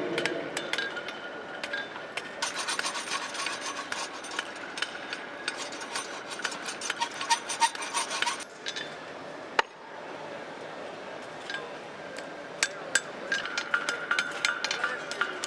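Blacksmiths' hammers striking hot steel on anvils during tong forging: quick runs of blows with a metallic ring. The runs ease off for a few seconds past the middle, broken by one sharp single strike, then pick up again near the end.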